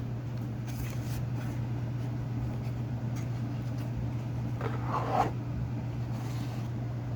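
Steady low electrical or fan hum, with a few faint clicks and one short rustle about five seconds in.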